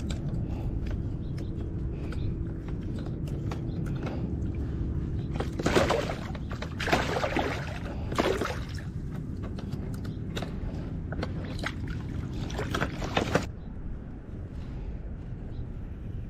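Water splashing at the side of a kayak as a caught crappie is handled over the water: three splashes about a second apart midway, and another later on. A steady low rumble runs underneath.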